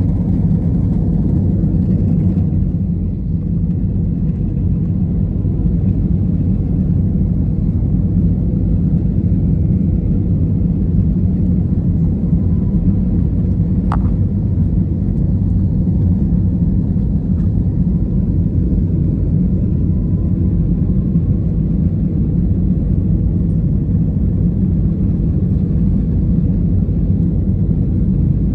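Steady low rumble of jet engines and airflow inside the cabin of an Airbus A320neo climbing after takeoff, with one brief click about halfway through.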